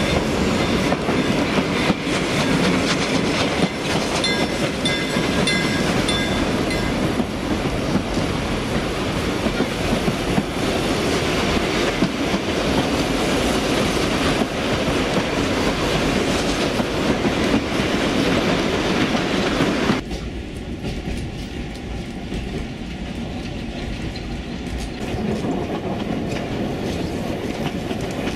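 Narrow-gauge train rolling along, heard from an open carriage window: steady wheel-on-rail noise with clickety-clack over the rail joints. About twenty seconds in the noise drops suddenly to a quieter steady run.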